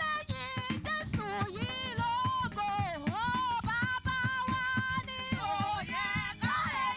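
Live gospel music: a woman singing lead into a microphone, with long held, wavering notes, over a band with a steady drum beat.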